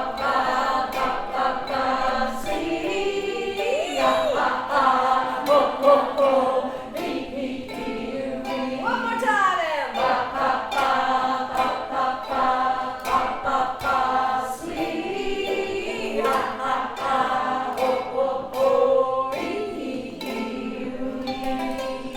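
Music with singing voices held over sustained chords and a light regular beat, with several sliding pitch sweeps, the largest a rising sweep about nine seconds in.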